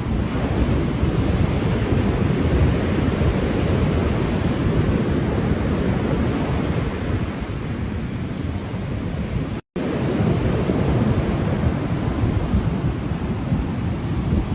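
Ocean surf washing continuously, a dense steady rumble of waves with no single breaker standing out. The sound cuts out completely for an instant about ten seconds in.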